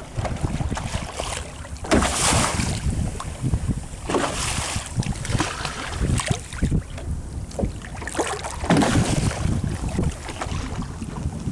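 Sea waves slapping and splashing against the side of a small fishing boat, three larger splashes about two, four and nine seconds in, with wind rumbling on the microphone.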